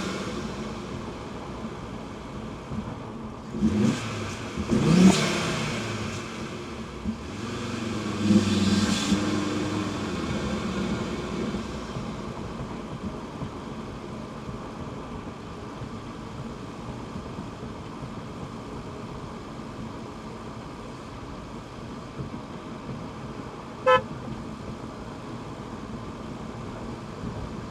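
Audi TT RS turbocharged five-cylinder pulling through the first ten seconds or so, its pitch rising and falling, with two brief whooshing rushes about four and five seconds in. It then settles into a steady, quieter cruise with road noise, broken by one short beep near the end.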